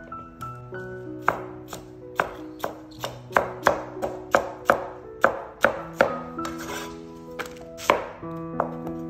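Chinese cleaver chopping green bell pepper on a plastic cutting board: sharp knocks about two or three a second, with a short pause near the end as it moves to an onion. Background music with held notes plays underneath.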